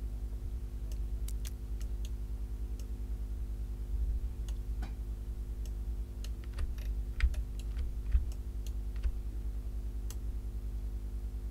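Scattered, irregular clicks of a computer mouse and keyboard being used at a desk, over a steady low electrical hum.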